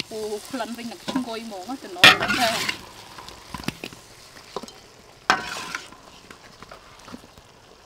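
Metal spatula scraping and stirring shrimp in a hot wok with some sizzling, then scooping them onto a stainless steel plate, with a few light clicks and scrapes. The loudest scrape comes about two seconds in and another about five seconds in.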